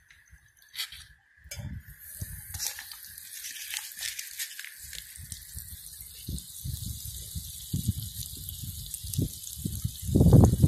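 Butter sizzling as it melts in a hot aluminium pot over a wood fire: a steady hiss with small crackles that sets in about a second and a half in. A louder knocking burst comes near the end.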